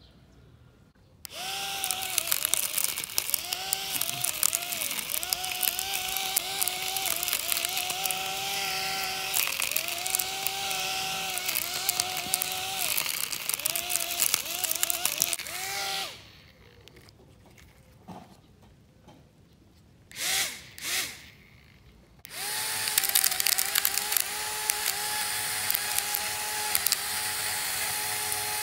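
Small electric motor of a homemade miniature lawn mower spinning its blade, a steady whine whose pitch briefly sags under load, over a dense crackle of grass being cut. It stops about halfway through, gives two short bursts, then runs again more steadily.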